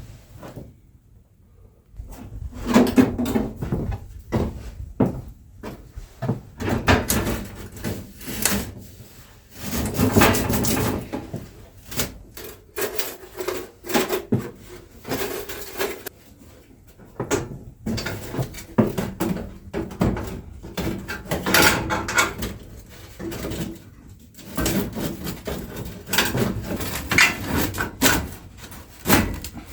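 Irregular knocks, clunks and scrapes of wooden things being handled in a small room.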